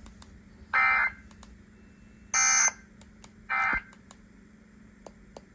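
Three short electronic beeps, a second and more apart, the middle one much higher in pitch than the other two, over a faint steady low hum.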